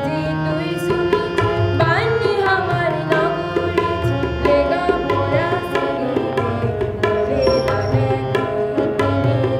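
A child singing to tabla and harmonium: the harmonium holds sustained chords under the voice while the tabla keeps up a run of quick strokes.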